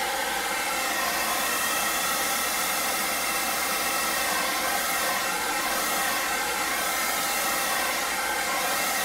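Handheld hairdryer blowing steadily: an even rush of air with a faint motor whine. It is warming the plastic cover film of a diamond painting canvas to soften the glue underneath and smooth out creases.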